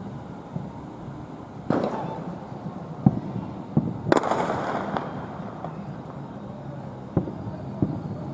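Aerial fireworks shells bursting, about six sharp bangs spaced irregularly. The loudest, about four seconds in, is followed by about a second of crackling.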